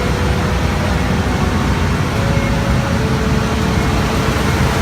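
Steady, loud rumble and hiss of a jet airliner running on the ground, with faint steady whining tones over it.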